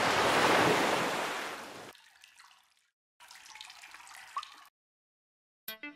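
Water splash effect: a loud rush of pouring, splashing water that fades away over about two seconds, then a softer trickle with a single drip plop. Music with plucked notes begins right at the end.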